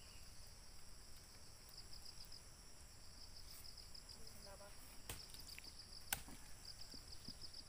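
Faint insects chirring: a steady high-pitched drone with a rapidly pulsing trill. Two sharp taps come about five and six seconds in.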